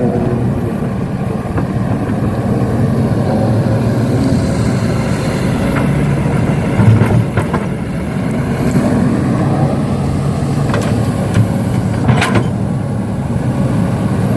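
Heavy equipment diesel engines running steadily with a low rumble as an excavator works with dump trucks. Occasional short metallic knocks come through, the sharpest about twelve seconds in.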